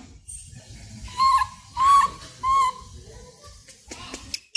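Gray langur giving three short, high-pitched calls about two-thirds of a second apart, each rising and falling slightly in pitch.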